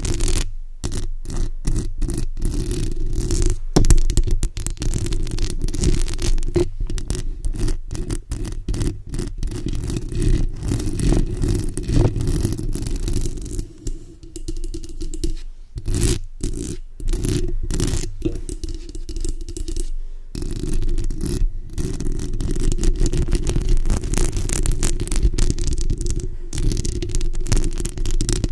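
Long acrylic fingernails scratching and rubbing directly on a bare microphone's metal mesh grille, heard right at the capsule as dense, deep, rumbling scratches broken by many brief pauses.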